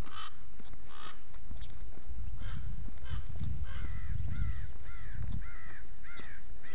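An animal calling in a quick series of short, arched, rising-and-falling cries, about three a second, starting about three and a half seconds in, over a low rumble.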